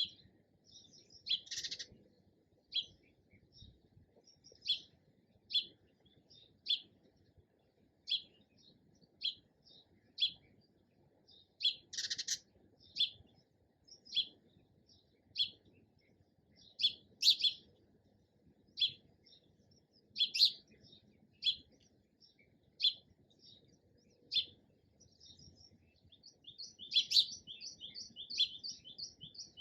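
Sparrow chirping: short single chirps about once a second, breaking into a quick run of chirps near the end.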